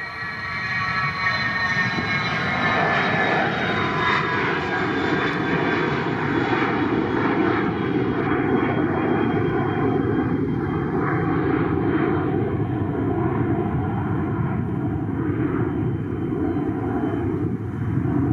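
Twin-engine business jet taking off and climbing away at takeoff thrust. Its engine whine falls in pitch over the first few seconds as the jet passes, then settles into a steady, loud engine noise.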